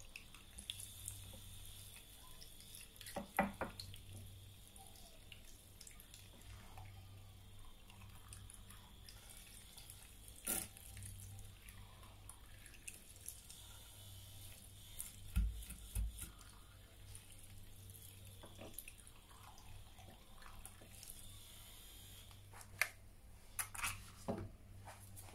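Fork beating raw eggs in a glass dish: faint wet stirring and sloshing, with a few sharp taps of the fork against the glass, more of them near the end.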